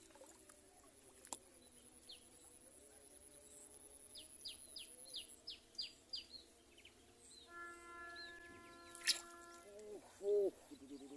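Outdoor bird calls: a quick run of about eight short, high, falling chirps, then a loud short call near the end. A steady humming tone is heard for about two seconds midway, and there is a sharp click shortly after it.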